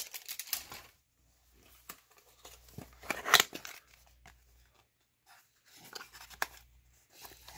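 A cardboard trading-card retail box being opened and its contents slid out: scattered scrapes, rustles and clicks of cardboard and a plastic card holder, the loudest about three seconds in and another a few seconds later.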